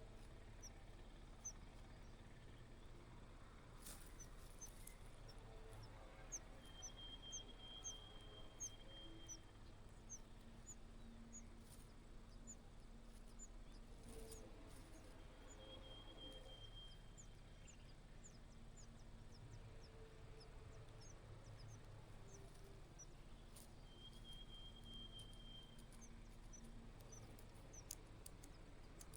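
Faint, thin, high chirping of small bird chicks: runs of short falling cheeps, several a second, over a low steady hum.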